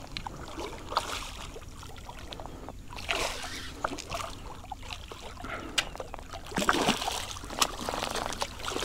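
A hooked redfish thrashing and splashing at the water's surface beside a kayak as it is brought to the landing net, in several irregular splashes, the loudest a little past halfway.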